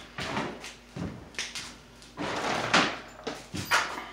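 Irregular scraping and rustling handling noises, five or six of them, a few starting with a sharp knock.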